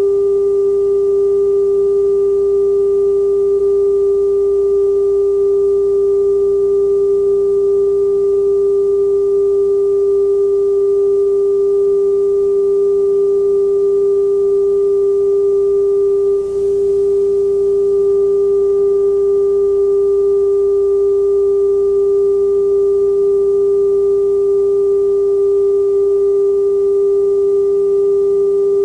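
Television test-pattern tone: one steady pure tone with faint overtones, broken by a brief dropout about sixteen seconds in.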